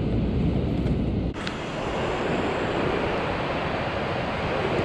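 Ocean surf breaking and washing up a sand beach, with wind rumbling on the microphone. About a second in the sound changes abruptly: the low wind rumble drops away and a steadier wash of waves takes over.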